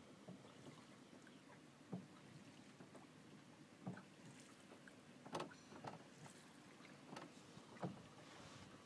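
Near silence aboard a small river boat: a faint steady hiss with about half a dozen soft, short knocks spread over the few seconds.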